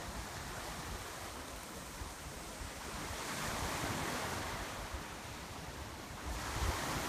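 Wind and waves on choppy open water: a steady rush of noise, with wind buffeting the microphone in low rumbles. It swells a little about halfway through.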